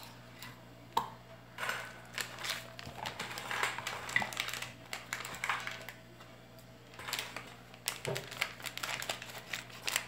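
Hands handling ladyfinger biscuits, picking them from a stainless steel bowl and laying them in a metal serving dish: light clicks, taps and rustles that come in short clusters.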